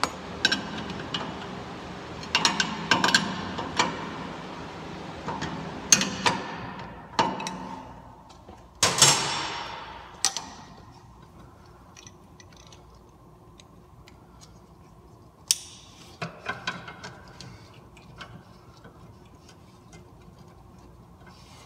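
Hand tools clicking and clinking under a vehicle as a downstream oxygen sensor is wrenched into place, with one loud metallic clank about nine seconds in and a quick run of small clicks later.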